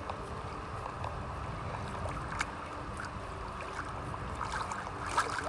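Steady wind on the microphone over shallow lapping water, with a few faint clicks toward the end as an oyster knife works against the shells of an oyster-covered wreck.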